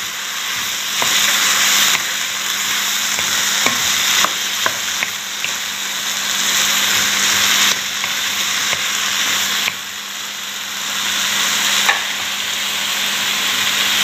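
Diced white squash and carrots sizzling in a non-stick frying pan while a spatula stirs them, with a few short taps and scrapes of the spatula against the pan.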